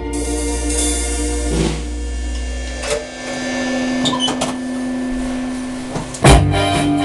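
A drum kit's cymbal crash at the end of a pop song, ringing out over the song's final held chord. It is followed by a few scattered knocks, and a loud hit near the end.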